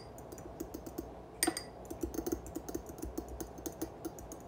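Metal fork beating egg and milk in a small glass bowl, its tines clicking rapidly and unevenly against the glass, about five clicks a second, with one louder clink about a second and a half in.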